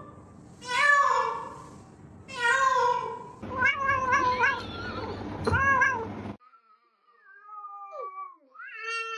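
Cat meowing over and over: two long meows, then a quick run of short ones and another meow. After a sudden cut, quieter, thinner meows follow near the end.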